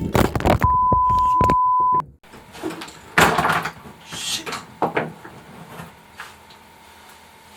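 A loud, steady, high electronic beep held for over a second, cutting off abruptly. It is followed by a few clunks and rustles of handling, the loudest about a second later, and a faint steady hum near the end.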